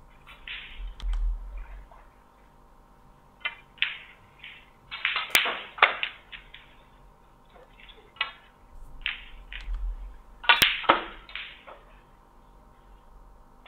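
Snooker shots: two sharp clicks of cue and balls, about five and ten and a half seconds in, among scattered short higher-pitched sounds.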